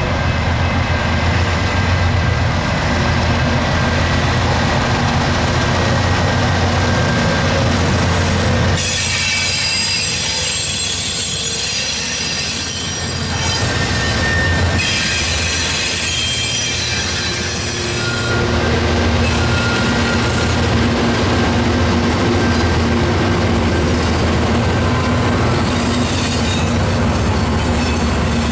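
Norfolk Southern GE 16-cylinder diesel locomotives passing at close range with their engines running, followed by loaded coal hoppers rolling by. High-pitched wheel squeal comes in about a third of the way through, fades, and returns briefly, over steady wheel rumble and clatter.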